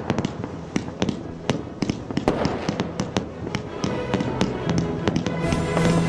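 Fireworks going off: a run of irregular sharp bangs, several a second, over crackling. Music with steady held notes comes in underneath near the end.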